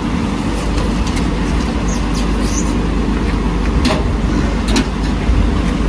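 A car engine idling with a steady low rumble, with a few light knocks of footsteps coming down outdoor stairs.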